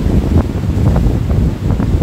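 Wind buffeting the microphone in a loud, churning low rumble, with short splashes of water against a hull or shore.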